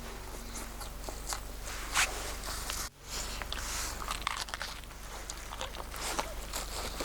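Footsteps crunching irregularly underfoot, broken by a short gap about three seconds in.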